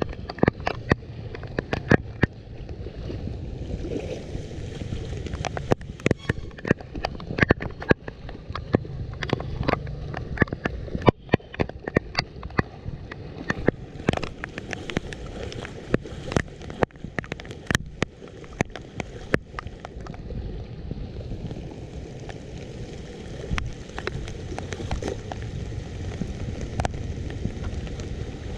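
Floodwater gurgling and sloshing at a leaf-clogged street drain, with frequent irregular sharp splashes and clicks.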